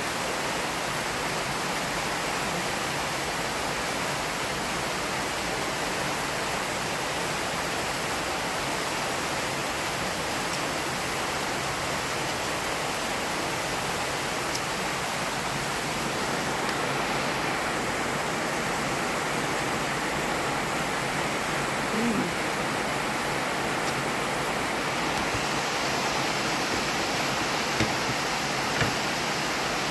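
Heavy rain falling, a steady loud hiss, with a couple of brief knocks near the end.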